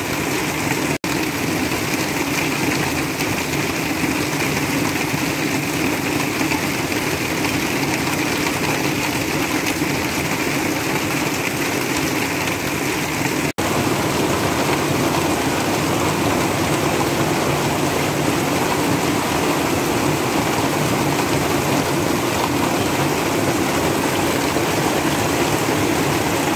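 Heavy rain pouring steadily onto a patio roof and running off its edge in streams, a dense even hiss that drops out for an instant twice.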